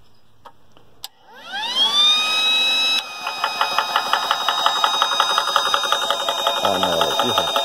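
Portable 12 V high-pressure PCP compressor switched on with a click: its motor whine rises in pitch as it spins up and levels off. About three seconds in the piston starts pumping in a rapid, even pulse as it fills a PCP air rifle's air cylinder.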